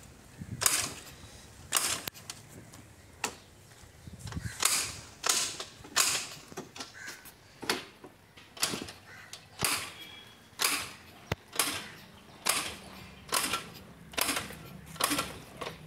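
Kinetic Honda scooter's two-stroke engine being kicked over again and again, about once a second, each kick a short sharp mechanical stroke. The cold engine turns over without catching.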